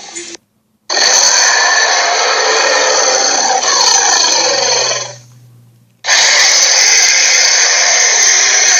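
Sharptooth dinosaur (Torvosaurus) roar sound effects: two long, harsh, raspy roars, the first lasting about four seconds and the second starting about six seconds in.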